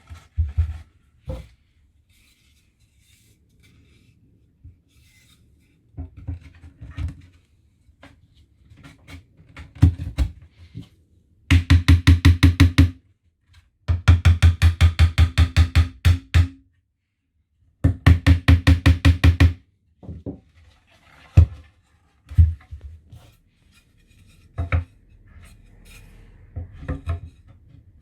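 Knocks and taps on wooden box parts, with three runs of rapid, even strokes at about ten a second, like fast hammering on the joints of a cedar hive box.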